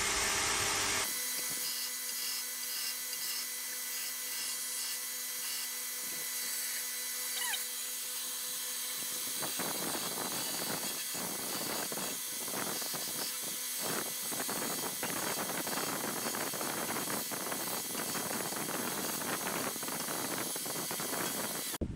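Belt sander running with a steady motor hum, after a louder first second of machine noise. About nine seconds in, a wooden knife handle is pressed against the sanding belt, and a dense, uneven scraping goes on until it cuts off suddenly near the end.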